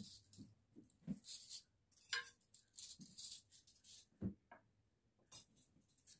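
Cutlery being set down on a cloth-covered dining table: a few faint soft knocks and light clinks as spoons and forks are laid beside the plates, the loudest about four seconds in, with brief rustling between them.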